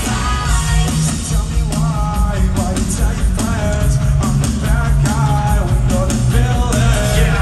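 Live rock band playing loudly with electric guitar and sung vocals, heard from among the audience.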